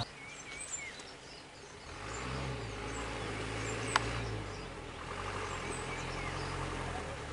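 Isuzu light truck's engine idling steadily, with faint birds chirping; a single sharp knock sounds about four seconds in.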